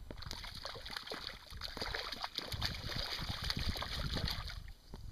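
A hooked brown trout thrashing at the water's surface beside the boat: a dense run of splashing and spattering that stops near the end.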